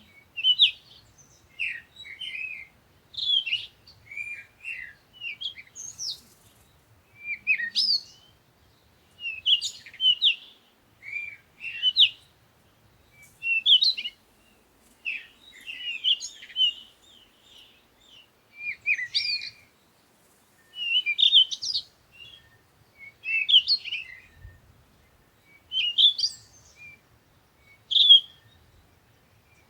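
Birds chirping: short phrases of quick high twittering notes, one every second or two, with brief quiet gaps between them.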